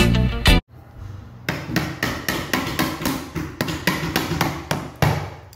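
A hammer striking the handle of a flathead screwdriver in quick, even taps, about three to four a second, driving the blade into carpet tack strip on a hardwood floor to pry it up. Guitar music ends about half a second in, before the tapping starts.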